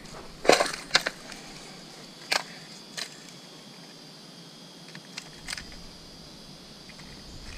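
A handful of sharp plastic clicks and knocks from a clear plastic lure tackle box being opened and its hard-bodied lures handled, the loudest about half a second in and a few more spaced over the next five seconds, over a faint steady hiss.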